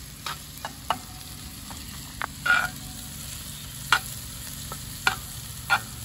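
Ground sausage sizzling as it browns in a Lodge cast-iron skillet, while a metal spatula scrapes and knocks against the pan in short, sharp strokes at uneven intervals.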